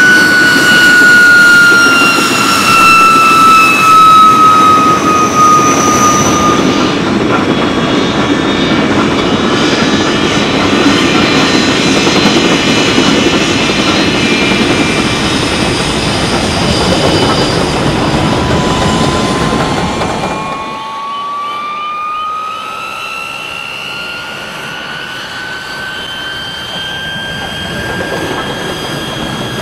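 Sound-fitted model of the GT3 gas turbine locomotive giving its turbine effect: a whine that falls in pitch over a steady rushing noise during the first several seconds. From about two-thirds of the way in, the whine rises again, and soon after the whole sound turns quieter and thinner.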